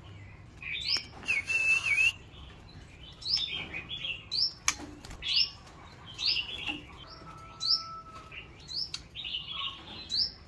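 White-rumped shama in a cage giving a dozen or so short, rising call notes at an uneven pace, with a few sharp clicks among them.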